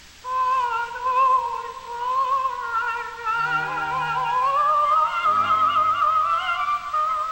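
Soprano voice singing slow, sustained operatic phrases with a wide vibrato, rising in pitch about halfway through, over soft low orchestral chords.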